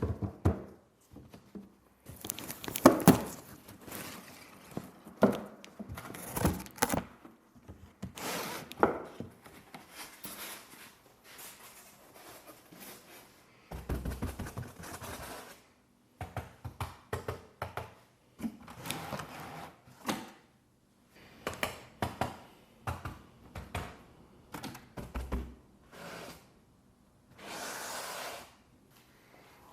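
Close-up handling of 1/24-scale diecast model cars and their packaging: a long run of sharp clicks, taps and thunks, broken by a few short stretches of rustling.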